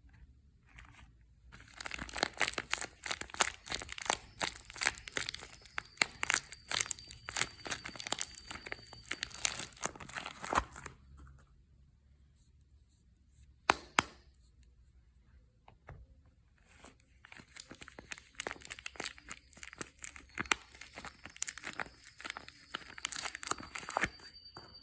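Soap wrapping being torn open and crinkled by hand in two long bouts of dense crackling, with a sharp double click between them.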